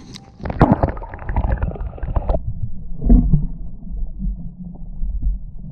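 Lake water splashing and sloshing against a GoPro camera at the surface, then turning to dull, muffled gurgling and low rumbling about two seconds in as the camera goes under water, with bubbles streaming up past it.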